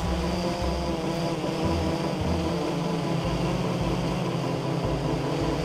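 Blade 350 QX3 quadcopter's electric motors and propellers whirring steadily in flight, heard from its onboard camera.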